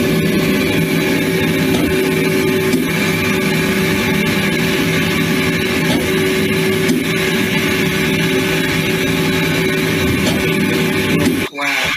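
Hardinge CNC lathe running while it machines a part: a steady, loud mechanical hum with several held tones over a hiss. It cuts off suddenly near the end.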